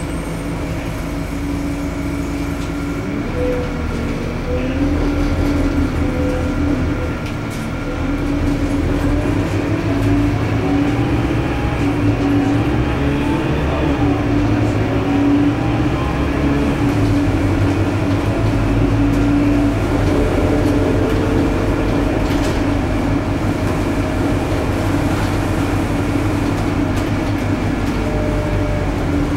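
Scania K230UB city bus heard from inside the passenger cabin while under way: a continuous diesel engine and drivetrain drone with road rumble. A whine rises in pitch partway through as the bus picks up speed.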